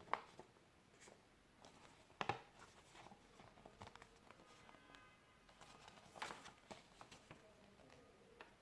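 Faint, scattered rustles and taps of a paper sheet being handled and creased while a paper airplane is folded, the loudest coming just after the start, at about two seconds and at about six seconds, over near silence.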